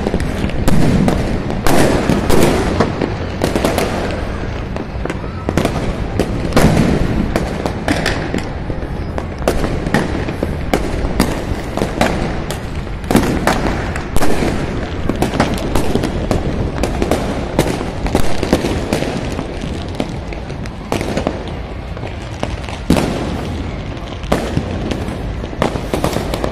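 Many fireworks and firecrackers going off, a continuous crackling din broken by irregular loud bangs.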